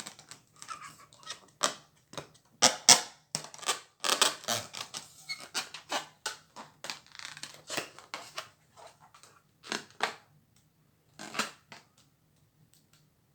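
Small balloons being popped one after another in an irregular run of sharp pops and snaps, the loudest a few seconds in, growing sparser toward the end.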